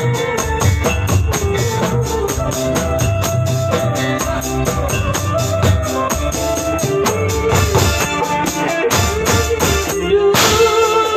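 Hand-played tambourine jingling in a steady, quick rhythm, about four strokes a second, along with music that has drums, bass and a held melody.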